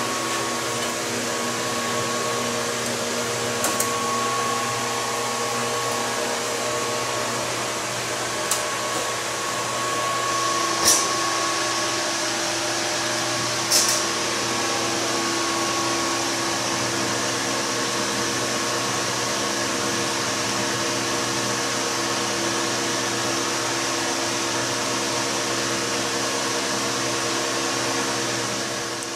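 Steady mechanical whir and hum from the running distilling rig's equipment, with a few short sharp ticks about 4, 8½, 11 and 14 seconds in.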